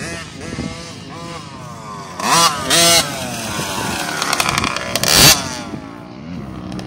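Small youth dirt bike's engine revving in repeated throttle blips as it rides over a jump close by, loudest as it passes a little over two seconds in and again around five seconds, its pitch falling as it pulls away.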